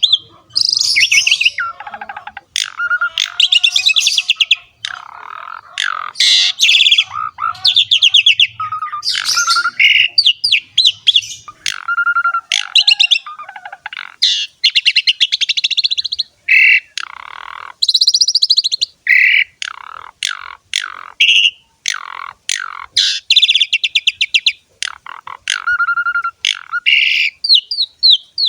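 Asian pied starling (jalak suren) singing in full voice: a long run of quick, varied phrases of harsh rasping rattles mixed with clearer whistled notes, with short pauses between them.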